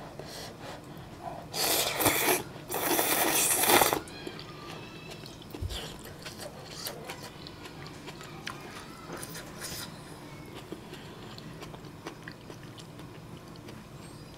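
A person slurps a mouthful of bean-sprout ramen noodles in two long, loud slurps about two and three seconds in, then chews with soft small clicks.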